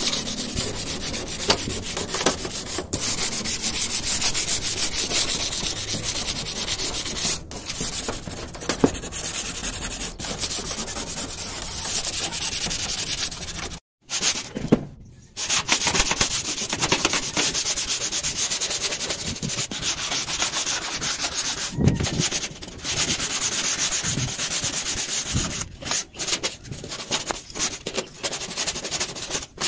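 Number 100 sandpaper rubbed by hand over a rusty corrugated galvanized iron roof sheet, a steady scraping that takes off the surface rust; it cuts out briefly about halfway through.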